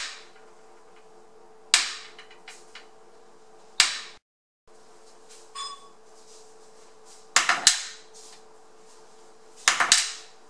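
AA alkaline batteries dropped end-first onto a ceramic tile floor, five times. Three times a fresh Energizer lands with a single thud and no bounce; twice a spent Duracell clatters in several quick bounces. In this bounce test, bouncing marks a flat battery.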